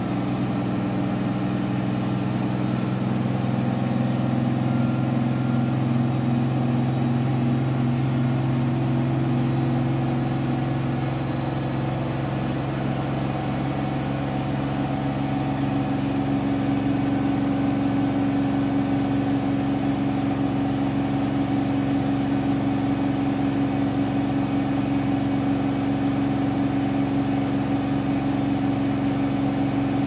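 Candy washing machine in its final spin at up to 1600 rpm: a steady motor and drum hum. About halfway through the pitch shifts, the lower tone fading as a higher one grows stronger.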